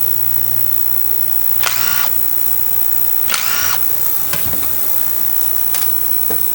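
Cordless power screwdriver run in two short whirring bursts, about a second and a half apart, while parts of an outboard carburetor are taken apart, over a steady low hum and a few light clicks.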